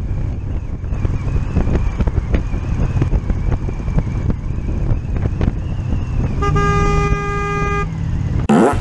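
Riding noise from a motorcycle on the road, a steady low rumble of wind and engine, then about two-thirds of the way through a vehicle horn sounds one steady blast lasting about a second and a half. Right at the end comes a loud sudden burst.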